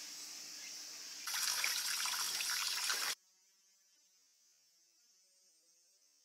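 Steady insect chirping, then from about a second in a louder rush of running, splashing water for about two seconds, which cuts off suddenly to near silence.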